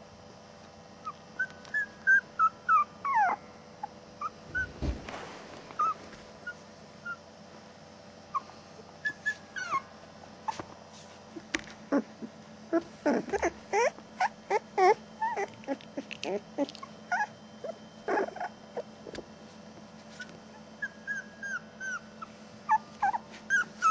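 Border Collie puppies whimpering: short, high squeaks that fall in pitch, coming in clusters with pauses between and busiest about halfway through.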